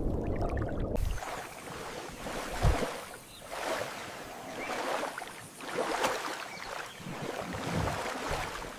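Water splashing and rushing in uneven swells, with a low thump a few seconds in.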